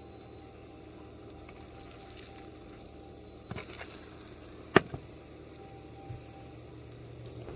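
Beaten eggs frying in a pan with a steady low sizzle. A few sharp clicks of the spatula against the pan come as the eggs are turned over, the loudest about five seconds in.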